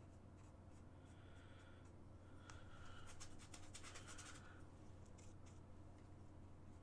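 Faint scratchy strokes of a paintbrush on canvas, busiest between about three and four and a half seconds in, over a low steady hum.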